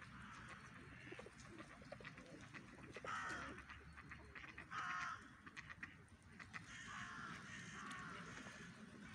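Feral pigeons cooing at close range, with two louder, harsher bird calls about three and five seconds in.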